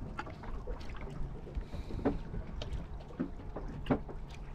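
Water lapping against a small fishing boat's hull, over a low steady hum, with scattered knocks and clicks from the boat and the handline.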